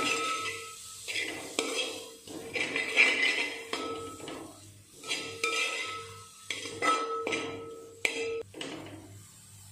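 Metal spoon scraping and stirring food in an aluminium pot, a stroke about every second, the pot ringing faintly between strokes; the strokes stop near the end.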